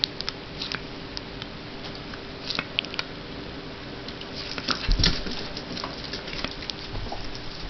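A dog leaping and snapping at soap bubbles: irregular light clicks and patter, with a heavier thump about five seconds in.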